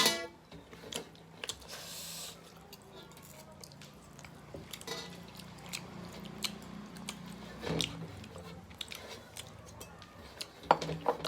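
Close-up chewing and lip smacking of a person eating rice and fish, with scattered small clicks and a few louder mouth noises about five, eight and eleven seconds in.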